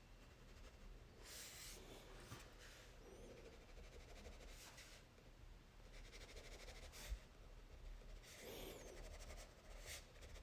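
Near silence, with faint short scratches of a black Crayola crayon stroking across drawing paper, several strokes under a second each.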